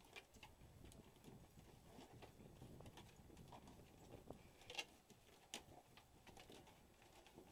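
Faint, scattered clicks and taps from a small dog in a plastic cone collar moving about on wooden deck boards. The loudest tap comes a little before five seconds in.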